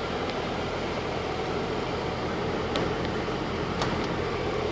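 Steady whir and low hum of a 2001 C5 Corvette standing still with its electric radiator cooling fans running, heard from inside the cabin. A few faint clicks.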